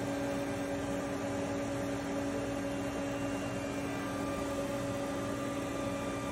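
Steady machine hum from a powered-up Haas VF-2SS CNC vertical machining center, a few steady tones held over an even noise with no change in level.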